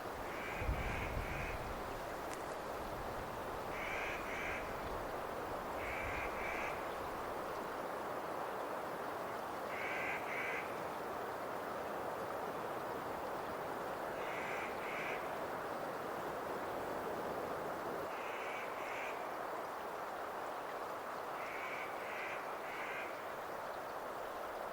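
A crow cawing in seven short bouts of two or three harsh caws each, a few seconds apart, over a steady background hiss.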